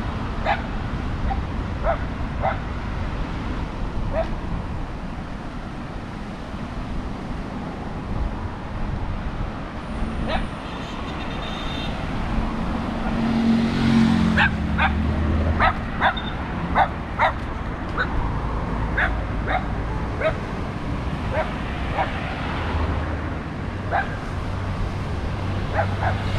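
A dog barking in short, sharp barks scattered through the stretch and bunched together in the middle, over a low rumble of street traffic.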